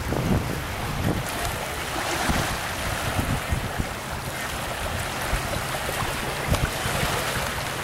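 Wind buffeting the microphone: a steady rushing noise with irregular low gusty rumbles.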